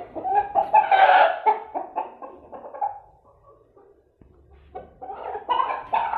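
Chickens calling in two bouts of clucking, the first over the opening seconds and loudest about a second in, the second starting near the end.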